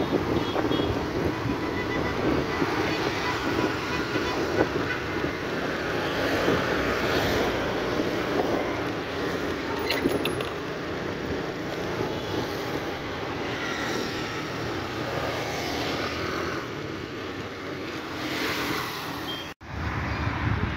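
Wind buffeting the microphone and road noise from riding a motorbike along a street with light traffic of passing motorbikes and cars. The sound drops out abruptly for a moment near the end.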